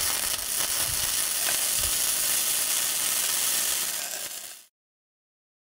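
Self-shielded flux-cored welding arc crackling and sizzling steadily as a weld is run on a steel T-joint. It cuts off suddenly a little over four and a half seconds in.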